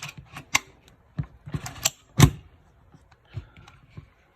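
A run of sharp, irregular metallic clicks and clacks from handling an AR-15 pistol, the loudest about two seconds in.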